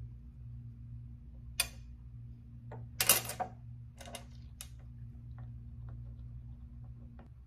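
Small glass objects and a glue tube being handled on a glass tabletop: a few sharp clicks and taps, the loudest cluster about three seconds in, over a steady low hum.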